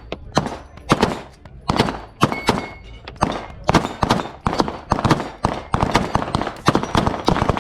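Pistol shots fired in quick strings, about two a second, each a sharp crack with a short echo, from Staccato 2011 pistols being shot on an outdoor range.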